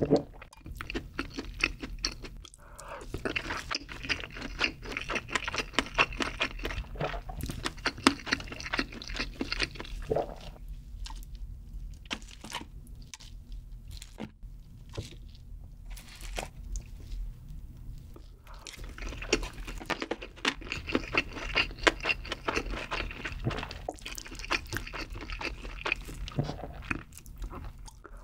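Close-miked chewing of Spam and egg-roll kimbap coated in creamy carbonara sauce: steady wet, crunchy mouth sounds. About ten seconds in the chewing stops for several seconds, leaving only a few light taps as kimbap pieces are lifted from a paper takeout box with chopsticks. The chewing then starts again with a fresh bite.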